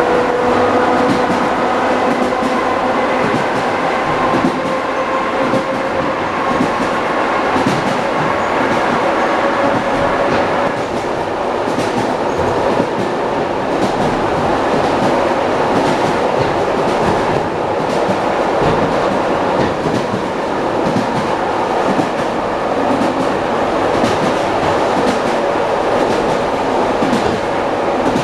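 Wheels of an ED9M electric multiple unit clattering over rail joints at speed, heard from inside the car's vestibule over a steady rolling rumble. A steady whine of a few tones fades out about ten seconds in.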